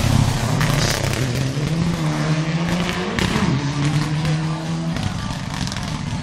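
Mitsubishi Lancer Evolution rally car driving past at speed, its turbocharged four-cylinder engine rising and falling in pitch through the gears. The engine sound drops away about five seconds in.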